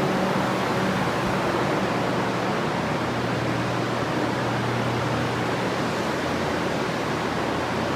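Many drying fans and a large dehumidifier running together, drying out a flooded building: a steady, even rushing noise with a low hum underneath.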